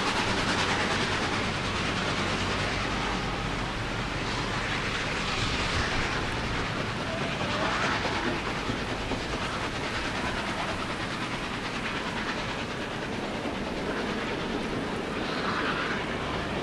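A long string of steel coal hopper cars rolling past on the rails: a steady rolling rumble and rattle of steel wheels on track.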